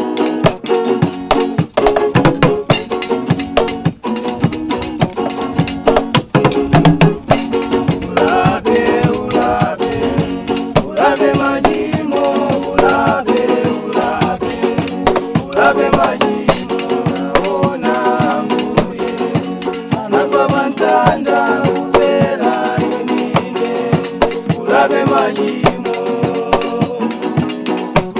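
Live acoustic band music: strummed acoustic guitars over a homemade drum kit, with sticks beating a bicycle-chainring cymbal and a skin drum. A man's voice comes in singing about eight seconds in.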